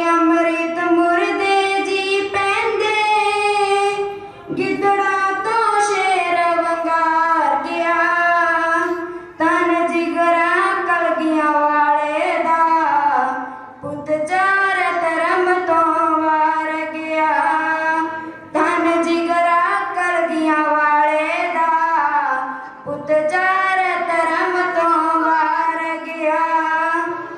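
A girl singing solo, in long held phrases with short pauses for breath about every four to five seconds.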